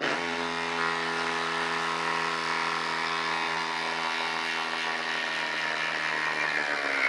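Flex 24V brushless impact driver hammering continuously as it drives a long screw through a socket into a wooden log round. It starts abruptly and runs at a steady, even pitch the whole time.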